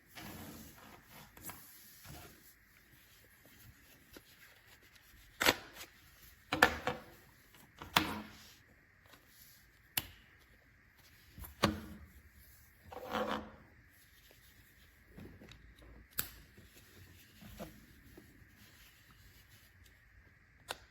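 Handling noise: a cable and its packaging being rubbed and moved about by hand, with soft rustling and a run of sharp knocks and clicks through the middle part.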